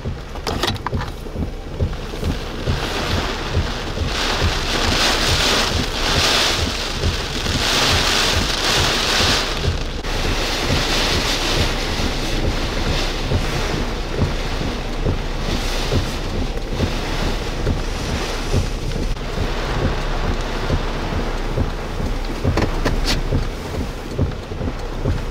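Hurricane wind and heavy rain, gusts swelling and easing, with wind buffeting the microphone as a steady low rumble. A short sharp knock about two seconds before the end.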